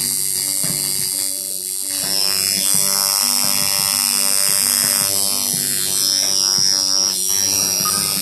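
Coil tattoo machine buzzing steadily as it runs, with hip-hop music playing underneath.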